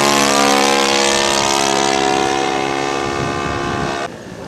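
Engine of a radio-controlled scale model airplane droning past on an overshoot, a steady multi-toned hum that slowly fades as it climbs away. It cuts off abruptly about four seconds in.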